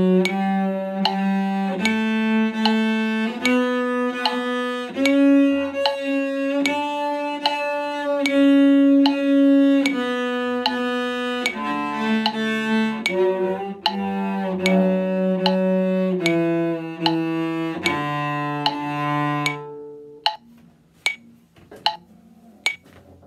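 Cello bowing a one-octave D major scale, each note held for two metronome clicks at 75 beats per minute. The notes climb to the top and come back down. The bowing stops a few seconds before the end, and the metronome goes on clicking alone.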